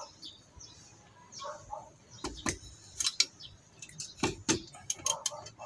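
Sharp metal clicks and knocks of a wrench and parts against a Hyundai Starex's rear drum-brake backing plate as the wheel brake cylinder is unbolted and worked loose. The clicks are scattered, about a dozen, starting about two seconds in.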